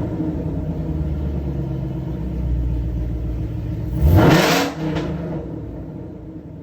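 A 2022 Shelby GT500's supercharged 5.2-litre V8 runs at idle, freshly fitted with a ported supercharger. About four seconds in it is blipped once: a quick rev that rises and drops straight back to idle.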